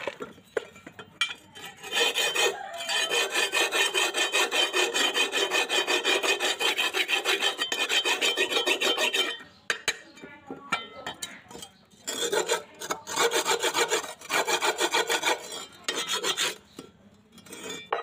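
A terry towel rubbed quickly back and forth over a rusty iron hoe blade, giving a fast, even, scratchy rasp. It comes in two long spells with a short pause between them.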